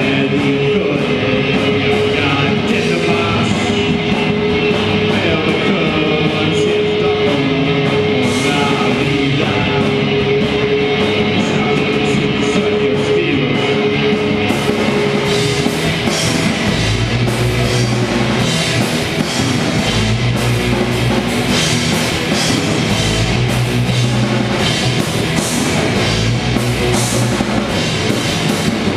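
Live rock band playing with electric guitar and drum kit. A steady note is held through the first half, then cymbals and heavy drum hits come in about halfway through.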